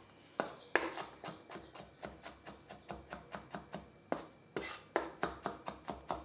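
Chef's knife finely chopping garlic cloves on a wooden chopping board: quick, even knife strokes, about four or five a second, a few of them harder.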